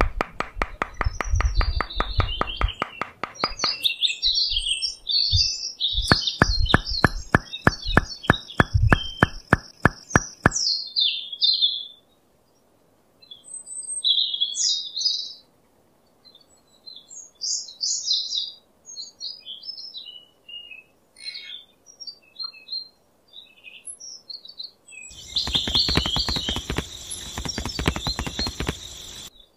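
Birds chirping and tweeting in short, scattered calls. During the first ten seconds and again near the end they are joined by a fast, evenly spaced pulsing beat.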